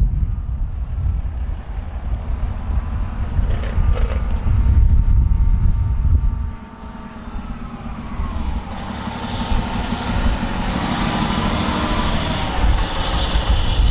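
Motor vehicle running with a heavy low rumble. About halfway through the rumble drops away, and a hiss builds steadily toward the end.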